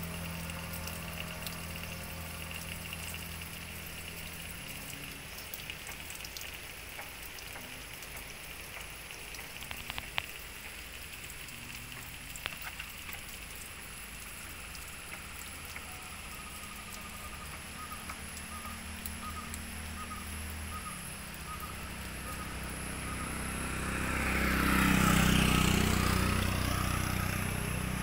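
Water dripping and trickling from a wet rock overhang, many drops splashing onto wet rock and moss in a steady patter, with a few sharper single drips. Near the end a louder rushing sound swells and fades.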